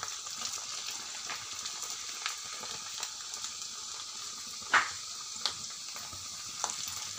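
Samosa rolls deep-frying in hot oil in a wok: a steady sizzle with scattered pops and crackles, the loudest just under five seconds in.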